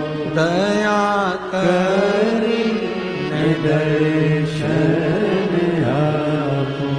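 Hindu devotional bhajan singing: a man's voice holding long, wavering notes over steady instrumental accompaniment, with brief breaks between phrases.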